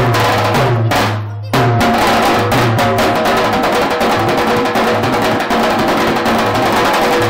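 Two dhol drums beating together, the deep bass head ringing low under sharp stick strokes. A few spaced heavy strokes open the passage, then about one and a half seconds in it breaks into a fast, dense beat.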